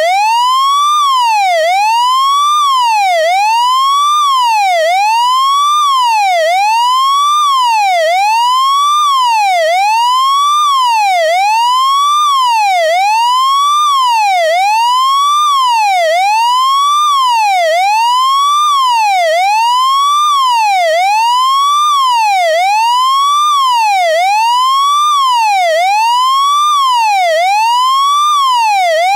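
Taiwanese fire engine's electronic siren, sounding continuously. Each cycle is a rising whoop that falls back sharply, repeating steadily about once a second.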